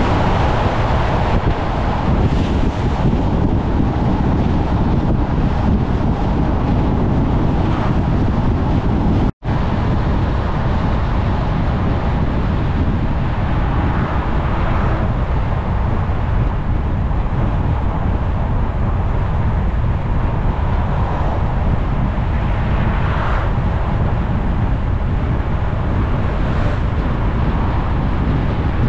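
Steady road and wind noise of a moving vehicle, a loud, even rumble with wind on the microphone. The sound cuts out for an instant about nine seconds in.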